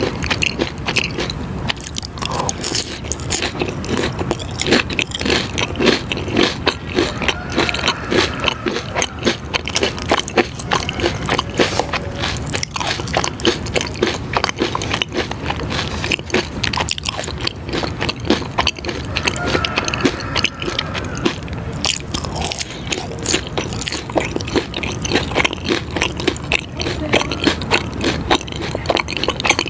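Close-miked eating sounds: biting and chewing, with a dense, unbroken run of small crunchy clicks and crackles.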